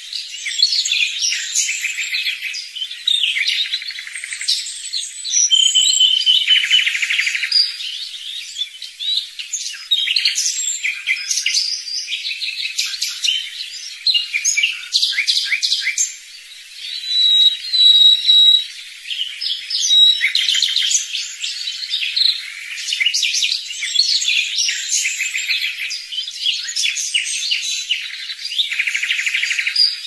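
Several songbirds singing at once: a dense, unbroken mix of chirps, trills and a few held whistled notes. It all sounds thin and high, with nothing low beneath it.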